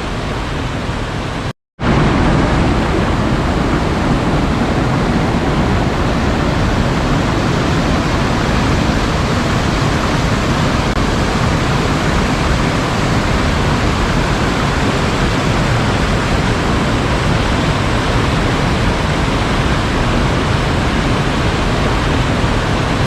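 Sea waves making a steady, even rushing wash. The sound cuts out for a split second about a second and a half in, then comes back a little louder, as at an edit join.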